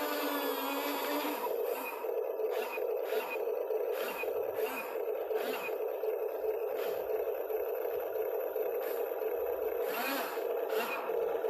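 Excavator at work: a steady drone with scraping, knocking strokes coming about twice a second.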